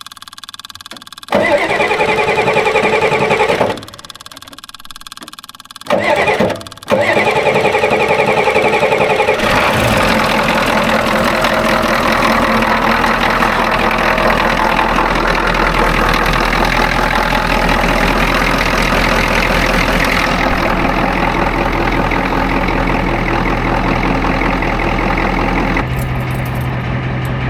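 Starter cranking the 1986 Ford F250's 6.9 L diesel in three tries: two short ones, then a long crank of nearly twenty seconds. The engine does not catch.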